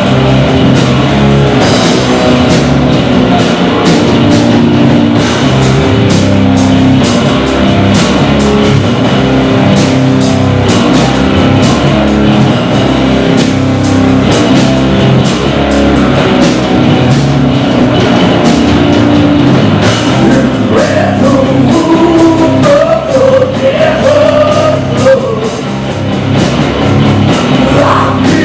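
Live rock band playing loud: electric guitars and a drum kit with steady drum hits, and a vocalist singing over them, heard most clearly in the second half.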